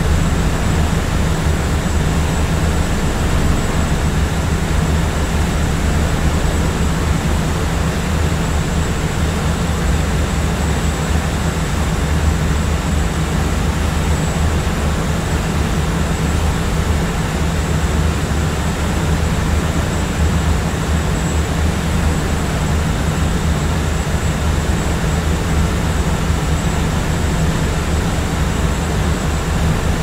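Jet airliner cabin noise in cruising flight: a steady, unchanging low hum and rush of engine and airflow noise, heaviest in the bass, with a faint thin high whine on top.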